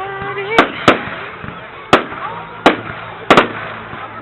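Fireworks going off: six sharp bangs at uneven intervals, the last two close together.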